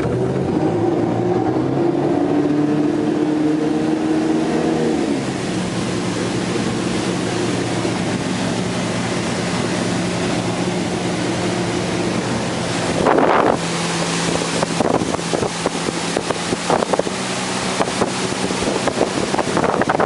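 A 2008 MB Sports B52 V23 boat's inboard engine running on the water, easing from higher revs down to a steady lower hum about five seconds in. In the second half there are gusts of wind noise on the microphone.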